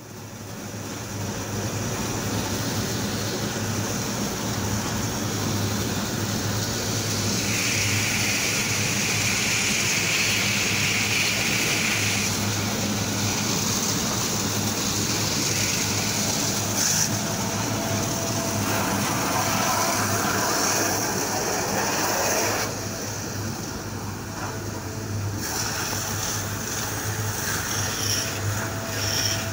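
High-pressure water jet from a sewer jetting machine spraying into a septic tank, hissing and splashing over the steady drone of the jetter's engine. The spray sound eases for a few seconds about three-quarters of the way through.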